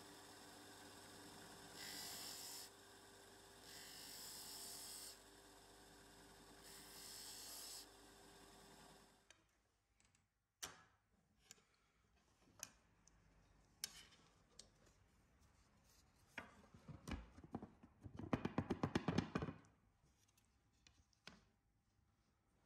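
Bench disc sander running with a steady motor hum, and a wooden blank pressed against the disc three times in short grinding passes. After the sander stops, scattered clicks and knocks of a wooden throat-plate insert being fitted into a metal saw table, with a quick rattling run of taps near the end, the loudest sound here.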